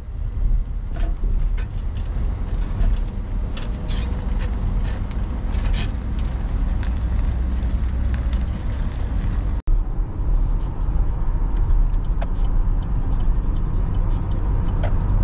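Vehicle on the road towing a boat on its trailer: steady low road rumble with scattered rattling clicks. After a cut about two-thirds of the way in, road noise inside a car cabin with music playing on the car stereo.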